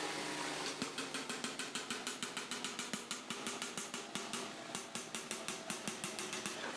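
Metal lathe running with a steady hum while machining an alternator housing, with sharp, even ticks about six times a second starting just under a second in.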